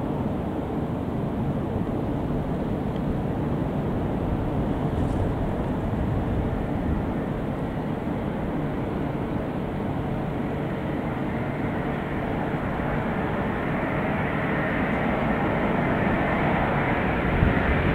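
Boeing 787-8 Dreamliner on final approach, its Rolls-Royce Trent 1000 jet engines making a steady rumble that grows louder toward the end as the airliner nears.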